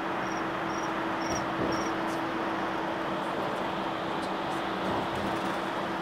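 Road noise inside a moving vehicle: a steady rushing with a low, even hum underneath. A faint high chirp repeats about twice a second during the first two seconds.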